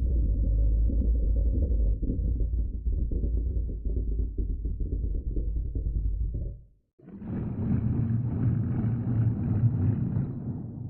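Sound-effect voice of an imagined fish monster: a deep, low growl that cuts off suddenly just before seven seconds in, then a second, brighter growl with a clear pitch that fades out near the end.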